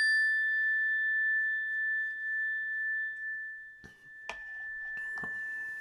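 Energy chime, a metal tone bar on a wooden resonator block, ringing after a single mallet strike: one clear high tone that slowly fades, its higher overtones dying away within the first few seconds. Two small clicks come about four seconds in.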